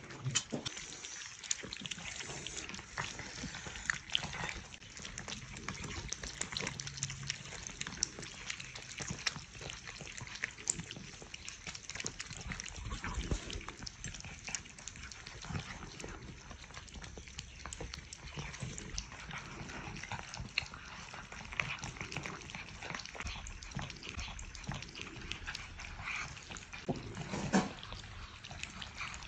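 Several cats eating wet cat food together: dense, wet chewing, smacking and lapping clicks without a break. A louder thump near the end.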